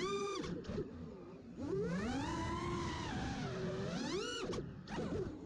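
FPV quadcopter's brushless motors and propellers whining, their pitch rising and falling with the throttle: a sharp rise at the start, a low dip about a second and a half in, then a steep climb to a high peak about four seconds in.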